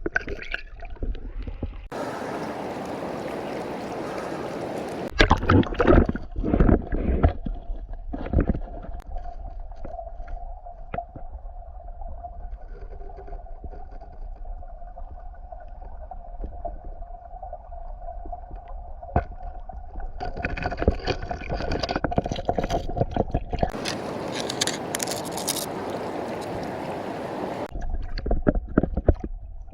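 Water running in a rocky stream, with two long bursts of rushing, hissing noise, a low rumble, and scattered knocks from handling gear among the rocks, strongest a few seconds in.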